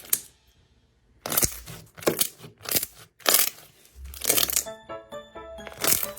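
Sharp crackling pops of slime being pressed and worked by hand, coming in a string of strokes after a brief quiet moment at the start. Background music with a light melody joins about four seconds in.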